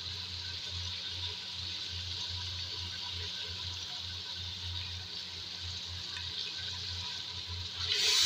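Beef pieces and onions frying in hot oil in a pot, a steady sizzle. About eight seconds in the sizzle flares up loudly as the ground spices go into the oil and are stirred.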